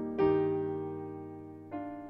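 Gentle piano music: sustained chords that slowly fade, with a new chord struck just after the start and another near the end.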